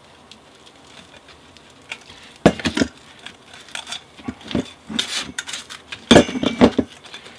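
Metal clicks and clatter from a hand rivet tool and a stainless steel pipe being handled on a workbench. A few short groups of sharp clicks begin a couple of seconds in, the loudest near the end.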